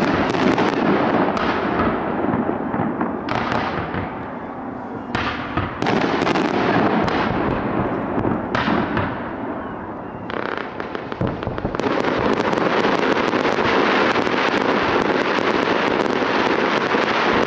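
Fireworks display: about half a dozen sudden bangs of bursting shells, each dying away. From about twelve seconds in comes a dense, continuous crackle.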